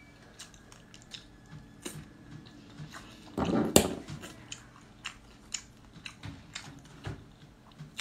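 A person chewing oysters close to the microphone, with many small mouth clicks. Just under four seconds in there is one louder burst ending in a sharp click.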